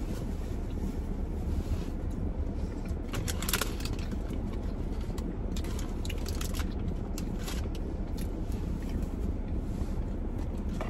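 Eating sounds: scattered crunches and crackly rustles in short bursts, over a steady low rumble.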